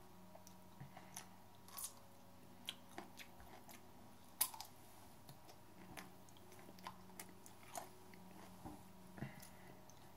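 A person chewing and biting raw hot chili peppers: faint, irregular crunches and wet mouth clicks, the loudest about four and a half seconds in.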